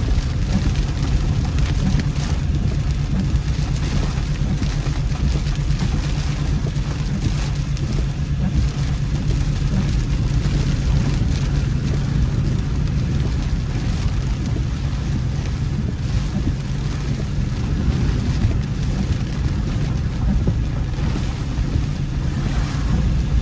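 Car driving through heavy rain: a steady low rumble of the road and engine under an even hiss of rain.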